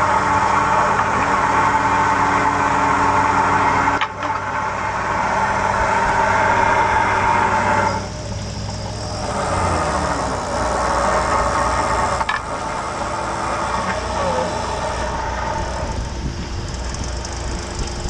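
Crab boat's hydraulic pot hauler pulling a crab pot's line up over the drone of the boat's engine. A high whine runs strongly, drops away about eight seconds in and comes back weaker, with two sharp clicks around four and twelve seconds in.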